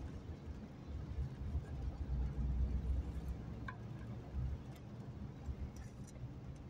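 Car driving on a wet road, heard from inside the cabin: a low rumble of engine and tyres that swells around two to three seconds in, with a few faint ticks.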